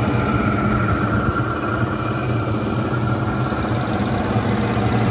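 Stirling engine running steadily at its working heat of about 500 °C, its hot end fired by a rocket stove with propane, turning an alternator through a V-belt.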